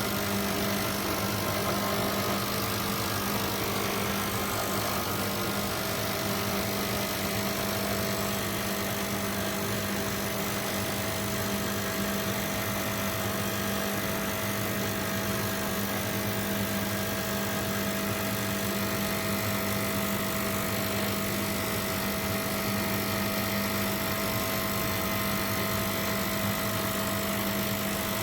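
Breville Bijou espresso machine running: a steady, unbroken mechanical hum over an even hiss.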